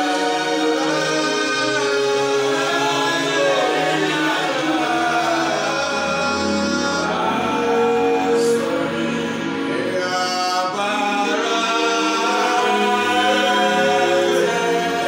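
Small male choir singing a Twi gospel song in harmony, with sustained chords, accompanied by an electronic keyboard whose bass line comes in about five seconds in.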